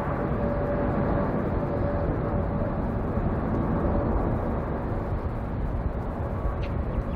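Jet engine noise of a departing DHL Boeing 777 freighter climbing away after takeoff, from its twin GE90 engines: a steady low rumble with a faint whine, slowly fading.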